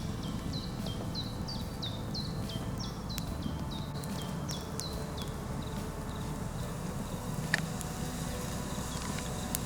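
Outdoor ambience with a small creature chirping over and over, about two to three short high chirps a second, each dropping sharply in pitch; the chirping stops about two-thirds of the way through. A steady low rumble lies underneath, and there is a single sharp click near the end.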